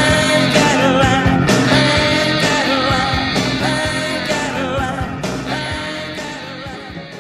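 Rock song with singing and guitar, fading out gradually over the second half.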